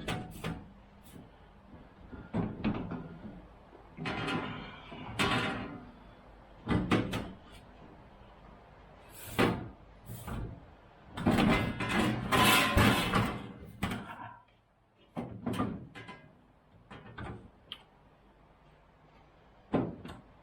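Irregular clunks and knocks from hands-on bodywork on a truck's floor pan, with a few stretches of scraping, the longest a little past halfway.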